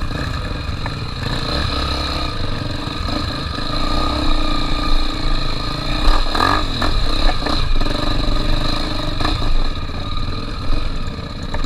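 Honda XR 250 Tornado's single-cylinder four-stroke engine running at a steady speed while riding, with a low rumble underneath and a few brief knocks.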